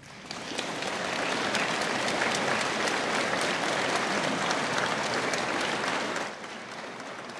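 Audience applauding: the clapping starts suddenly, holds steady and loud for about six seconds, then thins to lighter clapping.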